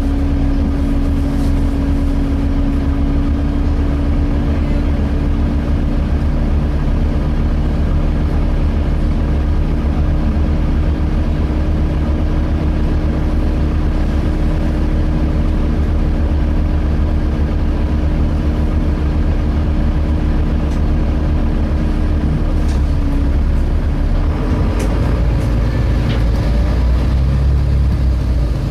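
Volvo B7TL double-decker bus's six-cylinder diesel engine and cooling fan running, heard from inside the bus. A steady hum sits over the low engine drone and stops about 23 seconds in, and the drone changes near the end.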